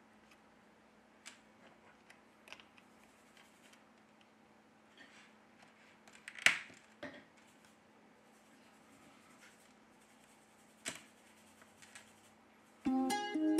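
Faint, scattered small clicks and taps as a smartphone's charging-port sub-board is handled and pressed into the frame, with one sharper click about six and a half seconds in and another near eleven seconds. Plucked-string background music starts near the end.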